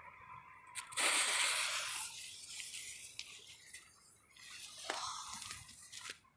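Firework smoke bomb hissing as it lights: a loud hiss about a second in that lasts about a second, then a quieter sputtering hiss with scattered crackles.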